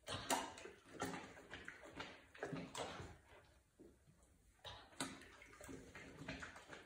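Dogs crunching and chewing raw broccoli, zucchini and apple: faint, irregular crackly crunches and wet chewing clicks.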